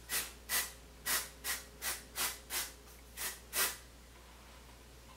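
Sally Hansen Airbrush Legs aerosol spray can spritzed in about nine short hisses, two or three a second, stopping about three and a half seconds in.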